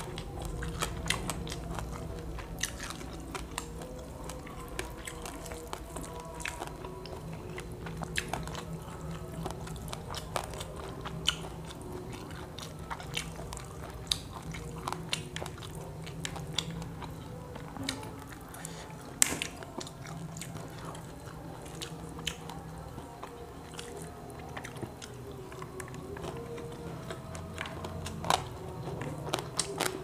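Close-miked eating of grilled quail: chewing and biting, with many short sharp clicks through the whole stretch, over faint background music.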